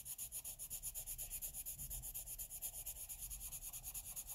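Derwent blender pencil rubbed over layers of Colorsoft coloured pencil on paper in quick, even back-and-forth strokes, several a second: a light, steady scratching as the layers are blended to hide the paper grain.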